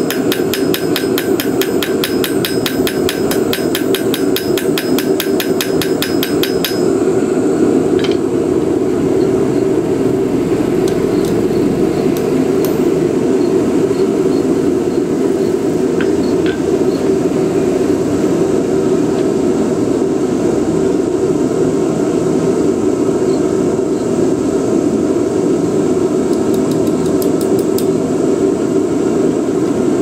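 Hand hammer striking red-hot steel on an anvil: rapid, even blows, several a second, forging a knife blade. The blows stop about seven seconds in, with a few single taps later and a short run near the end. A loud steady drone runs underneath.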